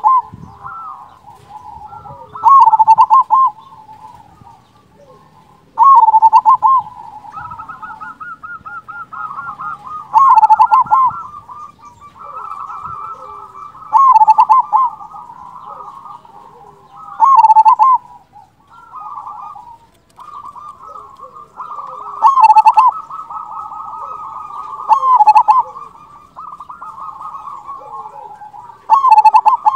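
Zebra dove (perkutut) singing its cooing song, with a loud phrase repeated about every three to four seconds, nine times in all. A quieter rippling, trilling coo fills the gaps between the phrases.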